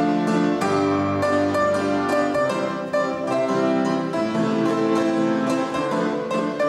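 Classical keyboard music playing steadily, a run of sustained notes.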